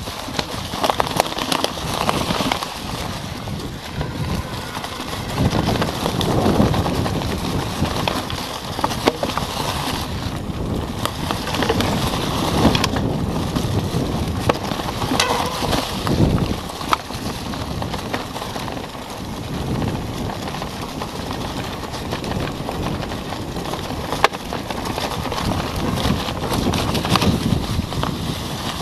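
Mountain bike riding downhill over a trail thick with dry leaves: tyres crunching through the leaf litter and over rocks and roots, with the bike clattering and rattling on the bumps.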